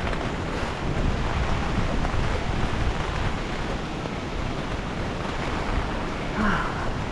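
Typhoon wind buffeting the microphone, with steady heavy rain, an even rushing noise heaviest in the low end.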